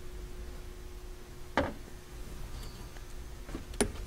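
Two sharp clicks about two seconds apart, from hand work on the Corvette rear hatch's gas strut fitting and weatherstrip, over a low steady hum.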